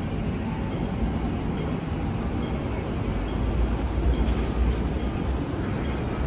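MTR Kwun Tong Line M-train running through the underground station without stopping, heard behind the platform screen doors as a steady low rumble that grows louder about three and a half seconds in.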